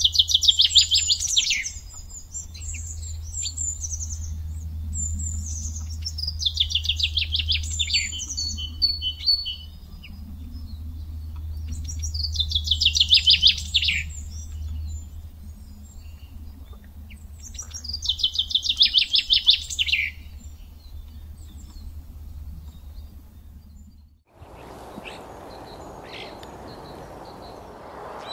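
Black kite calling four times, about six seconds apart: each call a high, quavering trill that falls in pitch. A low steady rumble runs under the calls. Near the end the calls stop and only a fainter steady hiss remains.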